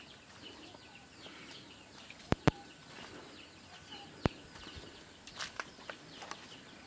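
Faint outdoor ambience with small birds chirping now and then. A few sharp clicks or knocks stand out as the loudest sounds: two close together a little after two seconds, and another just after four seconds.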